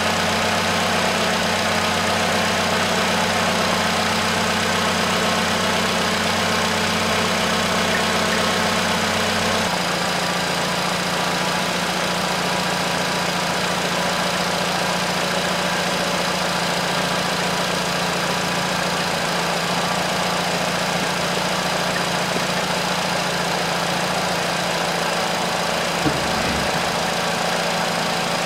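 Nissan Qashqai's 2.0-litre four-cylinder engine idling steadily; its low hum thins a little about ten seconds in, and there is one short knock near the end.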